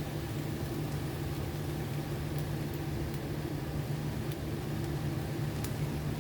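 Steady low mechanical hum with a few faint light ticks.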